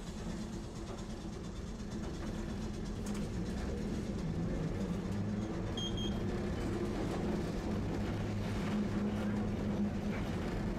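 Tosaden streetcar running along its tracks, heard from inside the car: a steady low motor and rail hum that grows gradually louder. A short double beep sounds about six seconds in.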